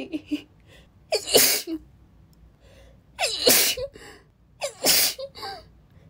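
A woman sneezing three times in a row, about one and a half to two seconds apart. Each sneeze starts with a short voiced gasp and ends in a sharp blast.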